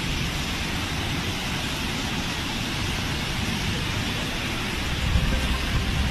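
Fast floodwater rushing down a street: a steady, even rushing noise, heaviest in the deep range.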